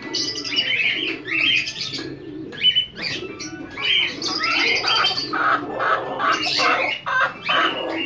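Chukar partridges calling: a dense run of short, rising notes, several birds overlapping. A brief sharp knock sounds just under three seconds in.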